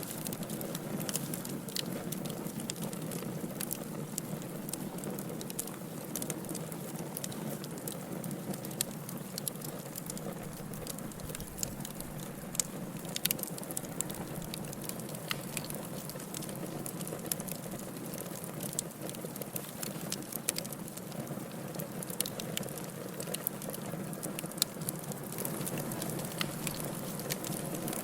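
Wood fire burning in a fireplace: a steady low hiss and rumble with frequent sharp crackles and pops scattered throughout.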